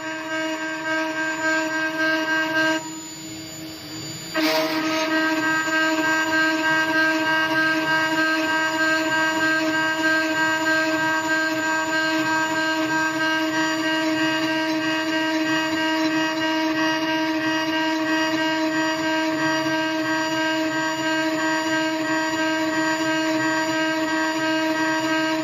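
CNC router spindle whining steadily while its end mill engraves letters into an aluminium plate, a steady pitched whine over cutting noise. It drops quieter for about a second and a half near three seconds in, then comes back a little louder.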